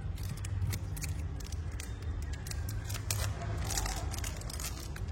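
Irregular light clicks and scrapes of a metal Zippo lighter being handled and turned over, over a steady low hum.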